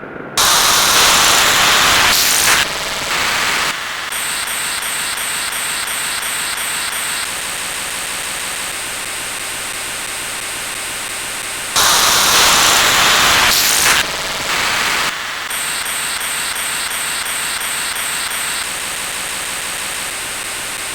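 Loud static-like hiss that cuts in sharply, then drops to a quieter hiss carrying a fast, even pulsing of about three beats a second. The same sequence plays again about eleven seconds later.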